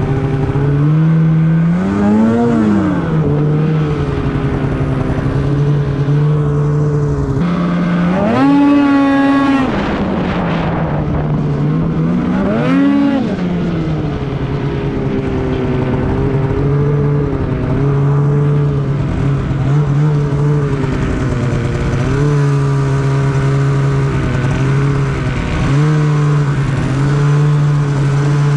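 Polaris Khaos 850 snowmobile's two-stroke twin engine running at a steady cruise, with the revs rising and falling several times as the throttle is worked, the biggest rise about eight to ten seconds in.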